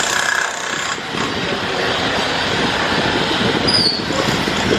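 Hidromek 102B backhoe loader at work: a steady mechanical rumble with grinding and a few brief high metallic squeals.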